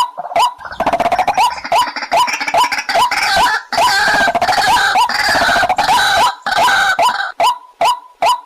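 White-breasted waterhen calling: short rising 'kook' notes repeated about two and a half times a second. From about a second in, the notes give way to a louder, dense run of overlapping croaking calls, which settles back into the evenly repeated notes about seven seconds in.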